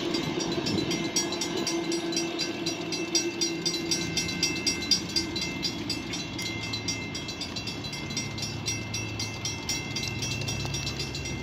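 Loaded rock train's freight cars rolling by on jointed track: a continuous clatter and rumble with a thin steady high squeal over it, slowly getting quieter.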